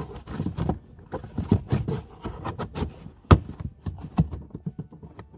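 Felt boot side trim lining being pushed and pressed into place by hand: irregular rustling and soft knocks, with one sharp click a little past halfway.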